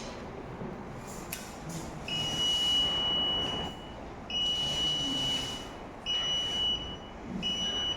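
Piezo buzzer of an Arduino flame-detection alarm sounding in four high-pitched beeps of uneven length, the first about a second and a half long, set off as the flame sensor detects a flame. A few sharp clicks come about a second in, before the beeping starts.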